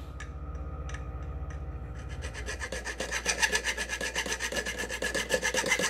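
Small metal file rasping back and forth across the threaded end of a scooter crankshaft, faint at first and then quick, short strokes from about two seconds in that grow louder. The stroke is reshaping a damaged first thread so the nut can thread on again.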